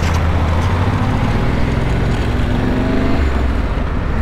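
Motorcycle engine running as the bike rides through town traffic, under a steady rush of noise, with a note that rises a little after two seconds as it speeds up.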